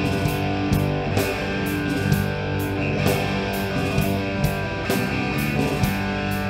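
Background rock music: electric guitar over a steady drum beat, about two beats a second.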